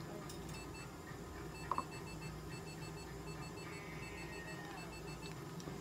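An electronic device beeping in rapid, evenly spaced short beeps on two high pitches at once, pausing briefly about a second in and stopping near the end. A steady low hum runs underneath.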